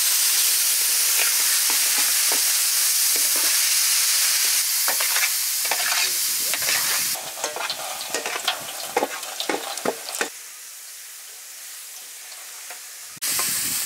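Chopped tomatoes frying in hot oil in a pan, sizzling steadily while a spoon stirs them. About seven seconds in the sizzle drops and the spoon's scrapes and clacks against the pan stand out for a few seconds, then the loud sizzle returns suddenly near the end.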